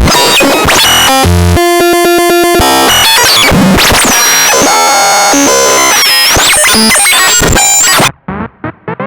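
A loud jumble of overlapping synthesized sound effects: a rapid pulsing passage, high whistles sliding up and down, and noise. It cuts off abruptly about eight seconds in, leaving quieter short repeated chirps.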